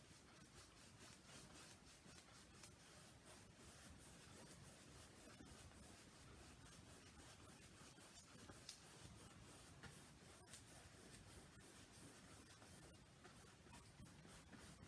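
Faint, irregular strokes of a paintbrush working wet acrylic paint across a canvas, many short brushes in quick succession.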